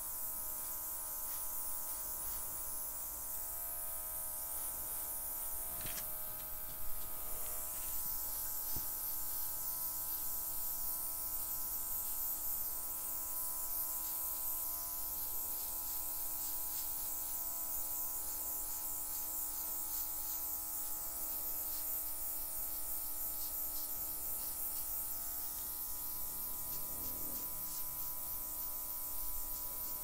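Small battery-operated handheld airbrush running steadily, its motor buzzing under a hiss of air as it blows wet acrylic paint across the canvas. A single brief knock sounds about seven seconds in.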